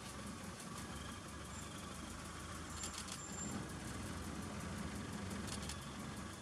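A vehicle engine idling steadily, with a few faint high chirps about three seconds in.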